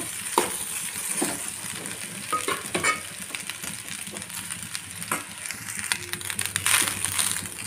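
Cooked rice being stirred and tossed with fried vegetables in a hot steel kadai: a steady sizzle, with scattered scrapes and clicks of the stirring utensil against the pan.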